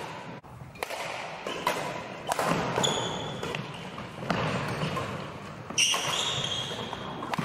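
Badminton rally: rackets striking the shuttlecock every second or so, with two sharp squeaks of court shoes on the wooden floor, about three seconds in and near the end, all echoing in a large sports hall.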